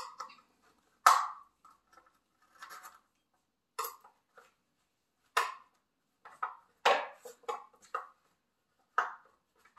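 A metal butter knife prying at the plastic bottom rail of a horizontal blind: about a dozen irregular sharp clicks and taps as small plastic pieces are levered and popped out.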